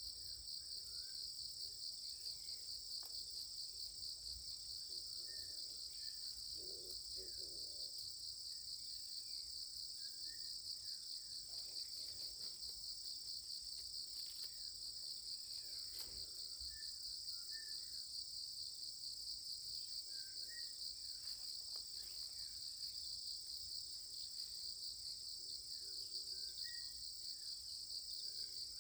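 Steady outdoor insect chorus, a high, rapidly pulsing trill that never lets up, with a few faint short chirps now and then.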